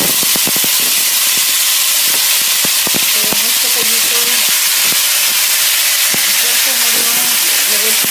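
Chicken pieces frying in very hot oil in a stainless steel pan: a loud, steady sizzle with crackles and pops, thickest in the first second or so.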